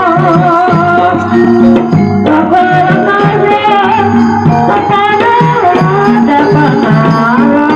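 Kuda lumping accompaniment music: a sliding, wavering melodic lead over a steady hand-drum pattern.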